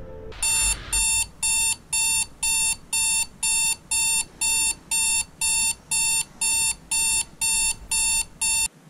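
Digital alarm clock going off at 7:00: a steady run of short, high electronic beeps, about two a second, that stops suddenly near the end.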